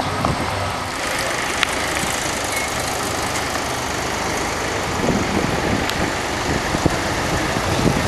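Crane engine running steadily as it lowers a motor yacht on its slings into the water.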